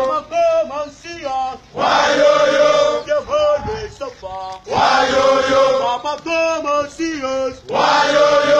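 A group of men chanting in call and response: a single voice sings a line and the whole group answers loudly in unison, about every three seconds.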